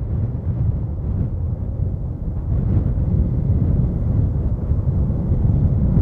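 Strong gusting wind buffeting the microphone in a loud low rumble, with the distant engines of a Boeing 767 airliner on final approach mixed in underneath.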